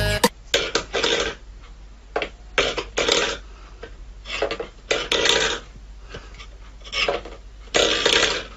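Stainless-steel bowl scraping and clattering on a wooden floor as a cat pushes it with its paw, in about a dozen short irregular bursts.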